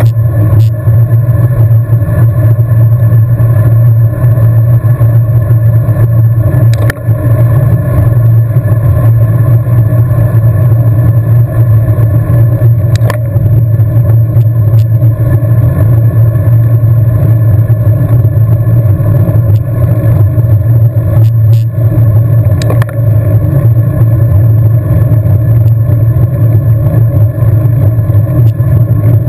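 Loud, steady rumble of wind and road noise picked up by a camera riding along on a road bike at race speed, with a few faint clicks.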